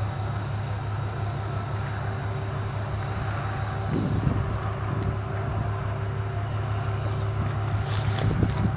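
An engine running steadily as a low, even drone, with a fainter steady hum above it.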